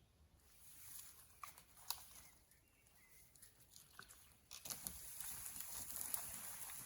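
Rustling with scattered light clicks and taps, getting louder and busier about two-thirds of the way through.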